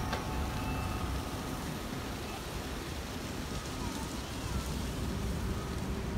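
Steady city street ambience: a low traffic rumble under an even hiss.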